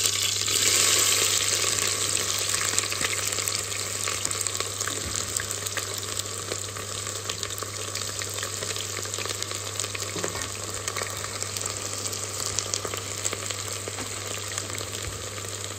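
Sliced onions sizzling in smoking-hot mustard oil in a pressure cooker, loudest as they first hit the oil and then settling to a steadier frying hiss. A steady low hum runs underneath.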